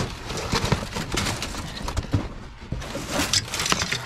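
Scrap being handled in a dumpster: irregular knocks, clicks and rustling as loose items are pulled and moved about.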